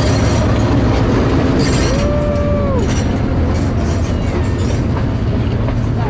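A train running past with a steady rumble. About two seconds in, a single held tone rises, holds for just under a second, and falls away.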